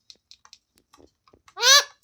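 A parrot gives one loud, short squawk near the end, rising then falling in pitch, after a second or so of faint clicks.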